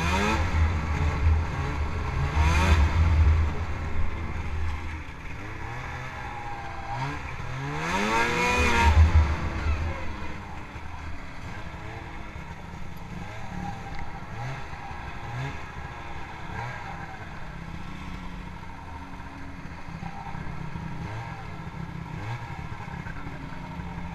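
Snowmobile engine running as the sled is ridden, revving up and down a few times in the first half, the biggest rev about eight to nine seconds in, then running at low, steady revs.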